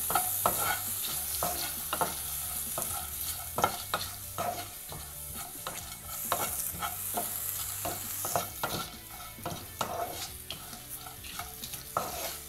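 Wooden spatula scraping and stirring coconut pieces and whole spices around a nonstick kadai in irregular strokes, about one or two a second, over a steady light sizzle as they dry-roast toward brown.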